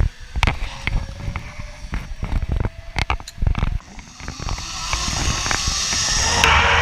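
Zipline ride: clanks and knocks from the harness and trolley at the launch, then a rushing noise that builds steadily from about four seconds in as the rider picks up speed along the steel cable, with a faint whine from the pulley rising in pitch.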